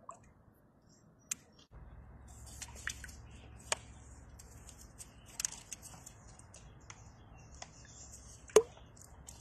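Sharp clicks and taps of tongs knocking inside a disused well while trying to grip a trapped toad, the loudest about three-quarters of the way through. Faint bird chirping runs underneath.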